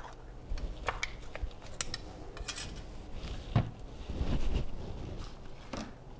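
Small clicks and knocks of a peanut butter jar being opened and handled, then set down on a kitchen counter, scattered irregularly with no steady rhythm.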